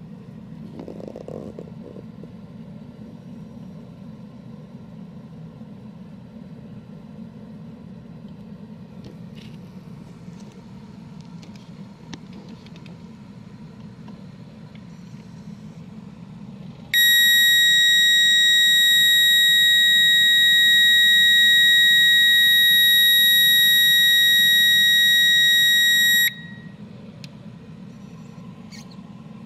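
A steady low engine hum from the idling car, with a few light knocks. About halfway through, a loud, steady, high-pitched electronic beep comes on, holds for about nine seconds and cuts off suddenly. It is the audible tone of the handheld circuit tester while probing a live pin.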